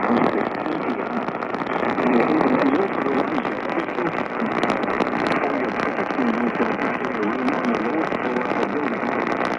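Loud hissing static from a weather radio receiver losing its signal, with a faint wavering voice buried under the noise.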